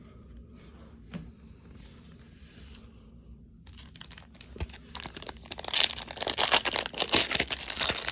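A baseball card pack's foil wrapper being torn open and crinkled: soft handling rustle at first, then a loud crackling tear from about halfway in to the end.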